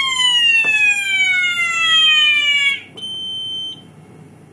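Electronic fire alarm siren sounding from a fire alarm control panel under test, a sweeping tone that falls slowly in pitch and cuts off a little under three seconds in. A short, steady high beep follows.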